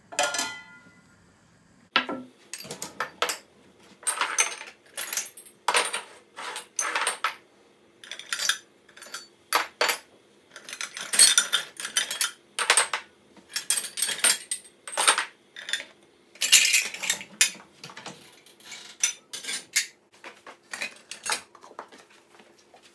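Glasses, bowls and plastic lids clinking and knocking against each other and the wire rack as they are taken out of a dishwasher's upper rack, in an irregular run of sharp clatters.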